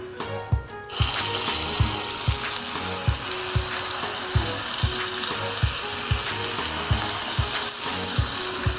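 Dal vadas deep-frying in hot oil: a steady crackling sizzle that starts about a second in. Background music with a steady beat plays under it.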